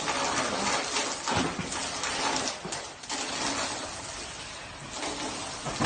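Steady rush of water pouring and spraying from a fire-sprinkler pipe, easing off gradually, with a sharp knock right at the end.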